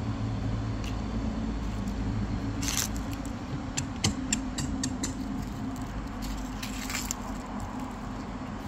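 Small dog moving about among dry fallen leaves on a deck: scattered light clicks and crackles, bunched in the middle of the stretch, over a steady low background hum.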